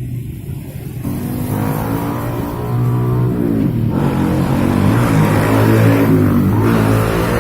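Car engine revving: it picks up about a second in, rises, drops back briefly, then climbs again and holds at higher revs.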